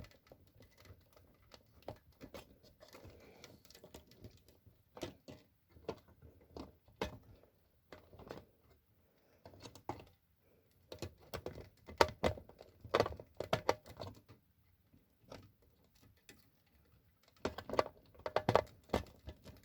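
Irregular plastic clicks, taps and knocks of a battery being fumbled into a smoke detector's very finicky battery holder, coming in busy clusters in the second half.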